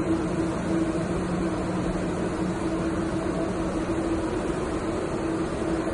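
Steady machine hum with two constant low tones over an even rushing noise, unchanging throughout, like ventilation or equipment running in a hall.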